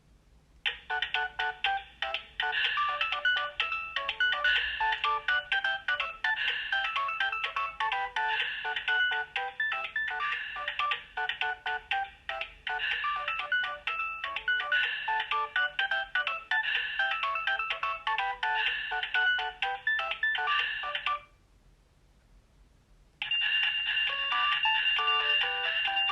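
Alcatel OT 735 mobile phone playing its built-in ringtones: one tune of quick, several-at-once notes runs for about twenty seconds and stops, and after a two-second pause the next ringtone begins with a held high tone under its melody.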